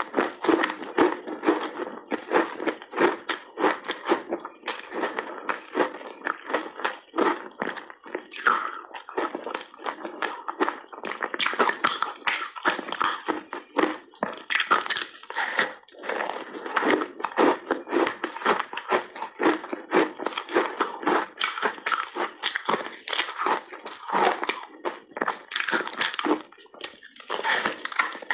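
Hard frozen ice being bitten and chewed: a layered block of frozen mixed-berry ice crunching and cracking between the teeth in a dense, continuous run of sharp crunches.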